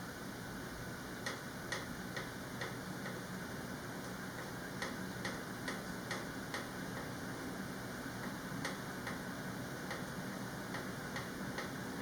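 Lancaster ceiling fan running with a steady hum and a sharp ticking about twice a second, in short runs.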